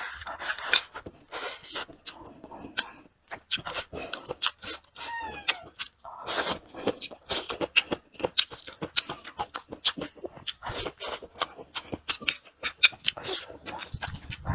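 Close-miked chewing of fried tofu and braised chicken feet: many short mouth clicks and smacks. A cat meows once, a short falling cry, about five seconds in.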